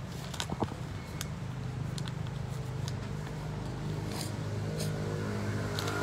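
A motor vehicle engine running steadily, growing a little louder over the second half, with light rustling and scattered clicks of paper sheets being handled.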